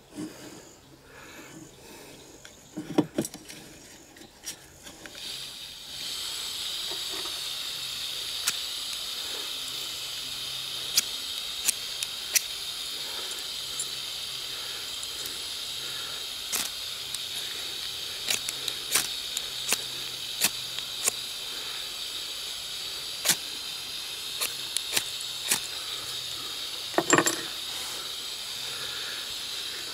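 A steady high-pitched hiss sets in about five seconds in and runs on, with scattered sharp clicks through it and two louder knocks, one near the start and one near the end.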